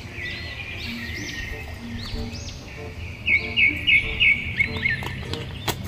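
Birds chirping over light background music, with a quick run of four loud chirps a little past the middle.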